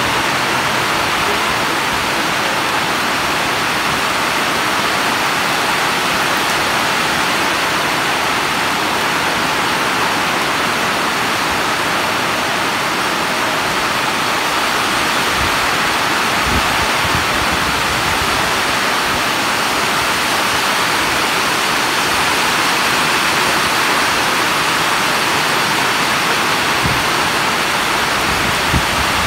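Very heavy rain pouring steadily onto a railway station's platform canopies and tracks, heard from under the roof as a dense, even hiss.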